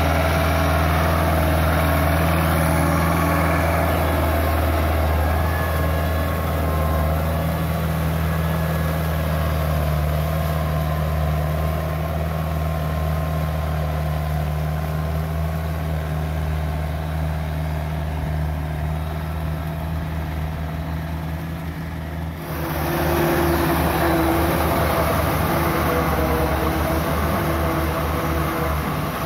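Farm tractor's diesel engine running steadily under load as it pulls a rotary tiller through wet paddy mud. The sound changes abruptly a little over twenty seconds in, then the engine carries on steadily.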